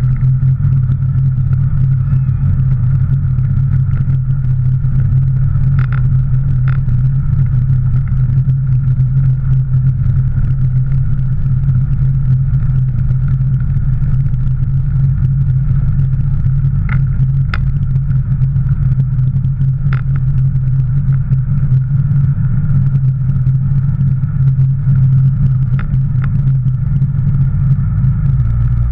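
Jet ski engine running steadily while cruising slowly, a loud, close, even drone with no revving.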